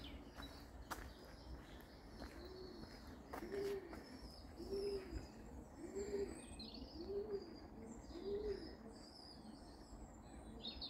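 A pigeon cooing: six low, evenly spaced coos about a second apart, with small birds chirping faintly higher up.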